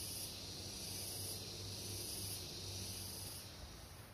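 Forest insects droning: a steady high hiss, with a higher buzz that swells and fades about once a second, three times, before the pulsing stops near the end.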